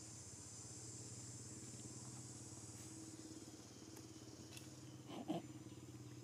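Quiet outdoor background: a steady low engine-like hum with a steady high hiss above it. A brief louder sound comes about five seconds in.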